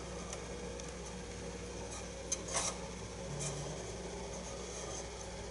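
Faint rubbing and handling of thread and a wooden dowel by hand during thread wrapping, with a couple of small ticks and a brief scrape about two and a half seconds in, over a steady low hum.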